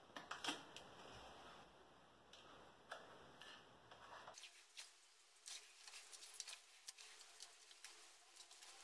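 Faint ticks and rustles of blue painter's tape being handled, pulled and pressed in strips onto a mirror's frame and the tiled wall around it, to hold the mirror while the silicone cures.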